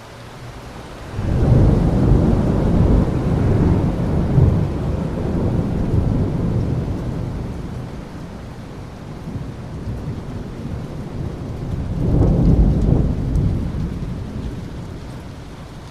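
Thunder rumbling over steady rain: a long, deep roll breaks in suddenly about a second in and slowly dies away, then a second, shorter peal rolls in about twelve seconds in.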